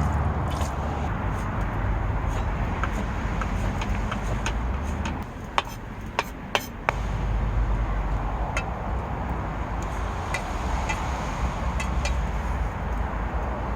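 Strong gale-force wind gusting against the car, a loud low rumble. It eases for a couple of seconds about halfway through, when several sharp clicks sound.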